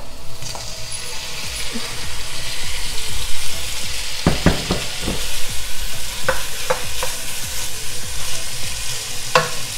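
Chunks of raw pork sizzling as they hit hot melted lard in a large pot, the frying hiss starting about half a second in. Several sharp knocks and scrapes come as the meat is stirred with a wooden spoon.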